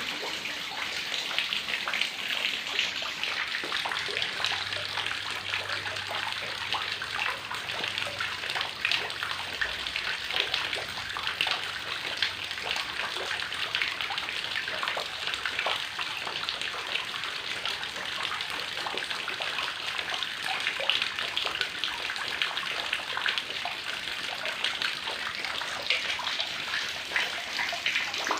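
Heavy rain falling steadily, a dense patter of many drops splashing close by.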